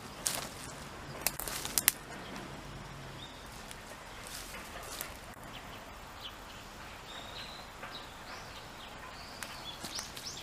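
Small birds chirping outdoors, with short calls and quick rising chirps growing more frequent in the second half. A few sharp snaps sound in the first two seconds, over a steady background hiss.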